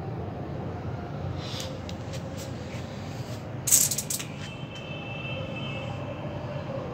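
Steady low background rumble, broken about four seconds in by a short, loud rustle of the phone being handled, with a faint high thin tone lasting about a second and a half right after it.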